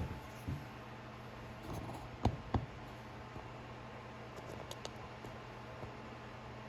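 Quiet bench handling: a few light clicks and taps, with two sharper clicks close together a little over two seconds in, over a steady low hum.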